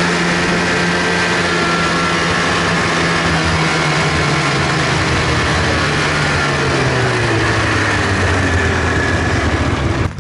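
Snowmobile engine running steadily while riding over groomed snow. Its pitch sags gradually through the second half as it slows, and the sound cuts off abruptly near the end.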